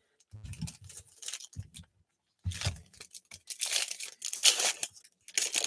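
Trading card packaging being torn open and crinkled: several short rips of wrapper, heaviest in the second half, with light knocks of handling.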